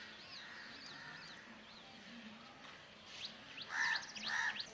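Birds chirping: a string of short, high chirps, with two louder calls near the end.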